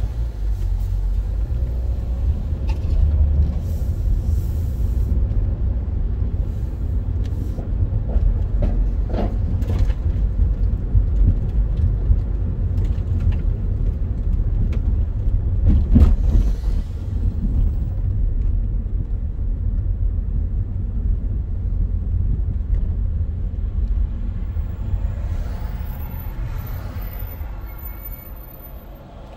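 Low, steady rumble of a car driving on city streets, heard from the car itself, with a few brief thumps, the loudest about sixteen seconds in. The rumble eases near the end as the car slows to a stop in traffic.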